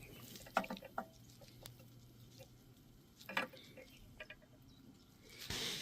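Faint handling noises of a starter pull cord being knotted at its plastic T-handle: scattered small clicks and rustles, a few in the first second and another around three and a half seconds in, with a short rustle near the end.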